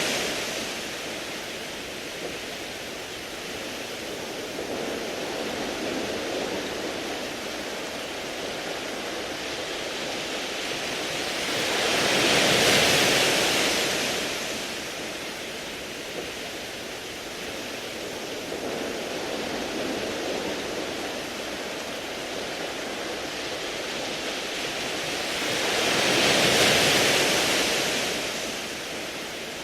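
Sea waves washing onto a beach of smooth round pebbles. A steady rushing hiss swells twice into a louder surge, about fourteen seconds apart.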